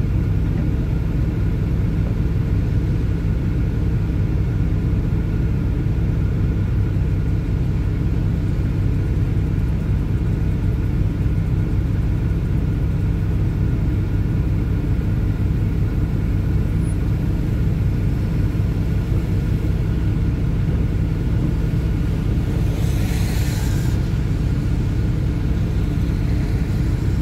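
Tractor-trailer's diesel engine idling steadily, heard inside the cab. Near the end the windshield wiper swishes once across the wet glass.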